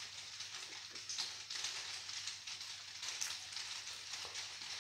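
A person chewing a mouthful of pizza: faint, irregular crackly crunches and mouth sounds.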